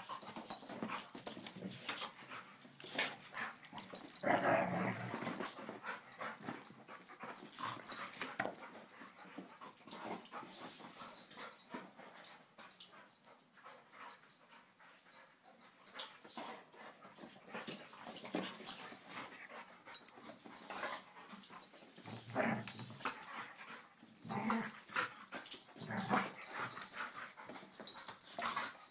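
Two dogs playing, making short bursts of dog noises with a few yips and growls, the loudest about four seconds in and again several times near the end, amid scuffling on the carpet.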